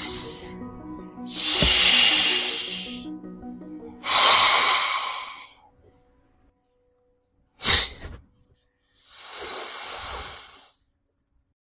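Four breathy hissing bursts, each one to two seconds long except a short sharp one near the middle, over quiet background music that fades out partway through.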